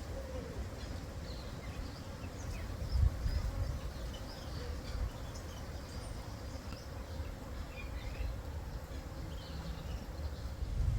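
An insect buzzing steadily, with scattered faint high bird chirps and an uneven low rumble underneath.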